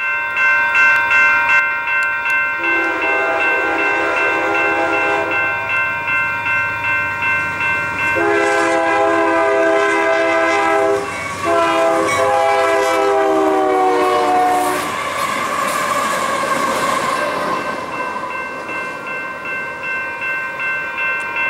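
A railroad crossing bell rings steadily, pulsing about twice a second. A Union Pacific freight locomotive consist sounds its air horn in three long blasts, the last one dropping in pitch as the locomotives pass, then rumbles by.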